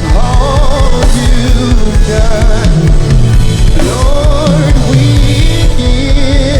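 Live worship band music with a drum kit, and a voice singing long wavering held notes over it.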